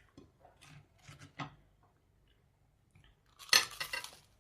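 Close-up eating sounds: soft chewing and small mouth clicks, then a louder crunch a little over three seconds in.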